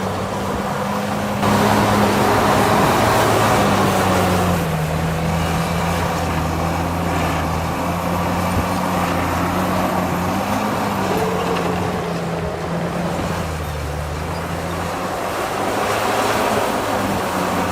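Heavy diesel construction machine engine running under load, its pitch dropping and rising several times as the work load changes, louder from about a second and a half in.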